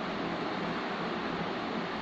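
Steady even hiss of background noise, with no distinct sound standing out.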